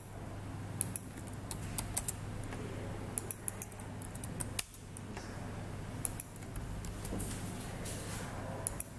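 Sharp clicks of a computer mouse and keyboard, scattered irregularly with some quick double clicks, over a steady low hum.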